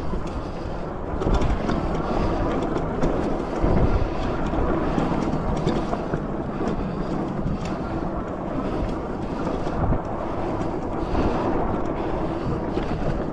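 Wind buffeting the microphone of a handlebar-mounted camera on a moving e-bike, over the low rumble of its tyres on a dirt trail, with occasional knocks and rattles from bumps.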